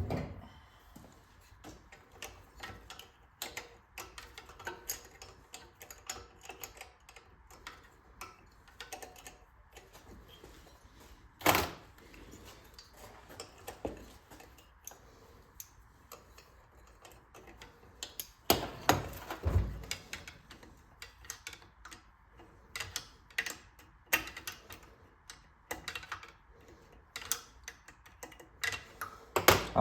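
Hand tools clicking and clinking against the metal parts of a Clinton 410 small engine as its carburetor nut is worked loose. There are many scattered small clicks, one louder clank about a third of the way in, and a cluster of heavier knocks with a dull thud a little past the middle.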